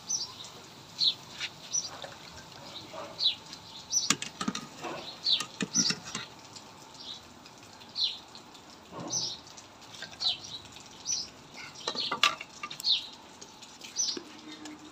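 Small birds chirping over and over, short high chirps about once or twice a second, with a few sharp metal clinks of a wire skimmer against the wok.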